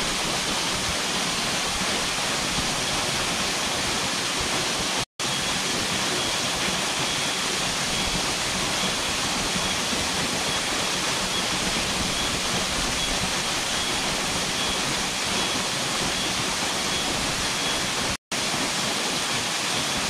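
Waterfall pouring into its plunge pool: a steady, even rush of falling water, cut twice by a split-second dropout in the sound.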